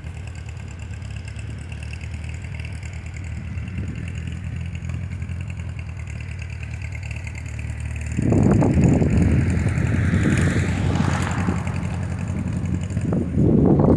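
An engine running steadily at idle, then suddenly louder about eight seconds in, with a brief rising whine a couple of seconds later.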